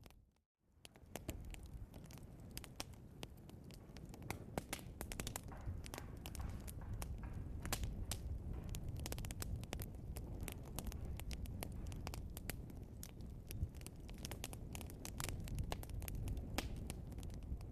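Wood logs burning in a fireplace: a steady low rumble of flame with frequent sharp crackles and pops. The sound drops out briefly just after the start.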